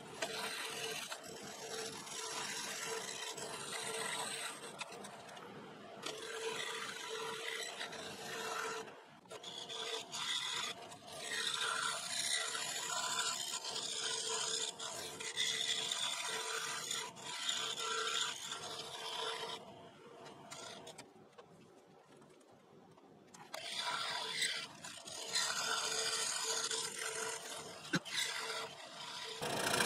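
DeWalt scroll saw with a fine reverse-tooth blade cutting small interior frets in African mahogany: a steady rasping buzz over a constant motor hum. The cutting breaks off briefly a few times, with a longer quiet gap a little past the middle.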